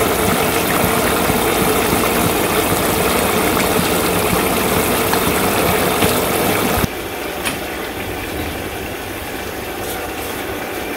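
Curry simmering in a pan on a gas burner: a steady bubbling and burner noise. It turns quieter about seven seconds in, with a soft knock or two as pieces of fried egg go into the pan.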